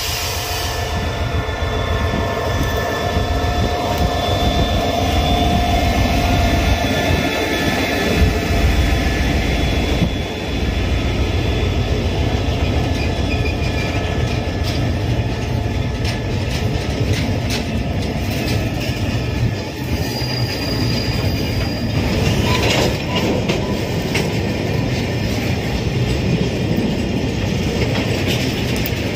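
Diesel-electric locomotive and railway carriages moving slowly on the track during shunting. The engine runs under a steady rumble, with steel wheels rolling, clicking over the rails and squealing at times.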